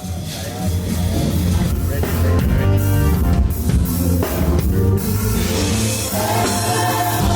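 Live band playing loud, full-band music with a drum kit and heavy bass, rising sharply in level as it comes in at the start.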